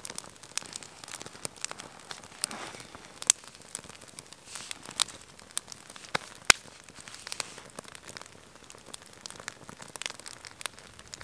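Small campfire of dry twigs crackling as it catches, with irregular sharp pops over a faint hiss; the loudest pop comes a little past the middle.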